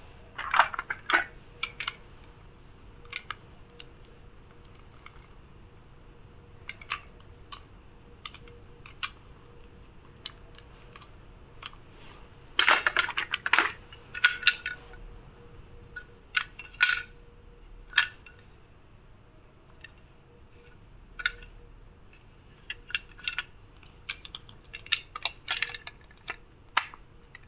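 Small plastic toy cars and trucks clicking and clattering against each other in a plastic basket as they are rummaged through and handled. Scattered sharp clicks come in busier clusters about half a second in, around the middle, and near the end.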